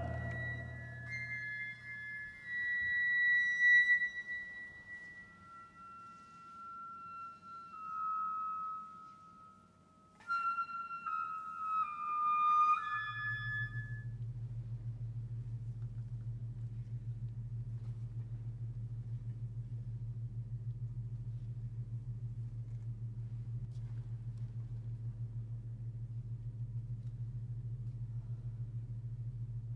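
Contemporary chamber music: high held flute tones that slide and step downward, with a short break partway. Then a low, steady drone with a fast even pulse takes over.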